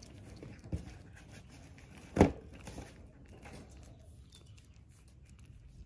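Kitten eating wet food from a plastic bowl: small soft chewing and licking clicks. One sharp knock about two seconds in and a lighter one earlier.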